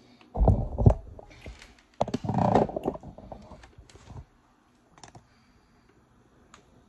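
Phone handling noise as the phone is picked up and set at a new angle. A few loud bumps and a rubbing scrape come in the first three seconds, then scattered light clicks.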